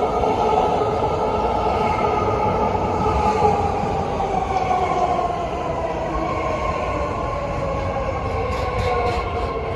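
BART Fleet of the Future electric train pulling into a station platform. Its traction-motor whine falls slowly in pitch as the train slows, over a steady rumble of wheels on the rails.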